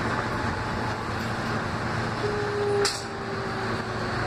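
R160 subway train running through a tunnel, heard from inside the car: a steady rumble of wheels and motors with a low hum. A short tone sounds in the middle, and a single sharp click comes just under three seconds in.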